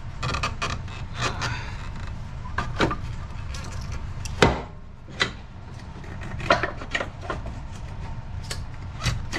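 Scattered knocks, clunks and scraping of metal parts as a 2003 Chevy Cavalier's engine mount is worked loose and pulled out of the engine bay, the loudest knock a little past the middle, over a low steady hum.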